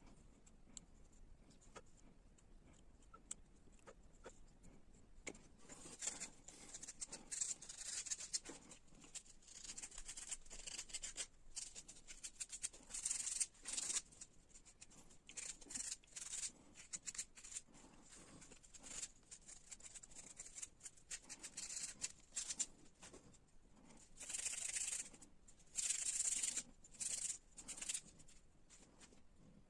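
A hand tool scraping and cutting linden wood in short, irregular strokes, with a few faint ticks at first and busier, louder stretches of strokes later on.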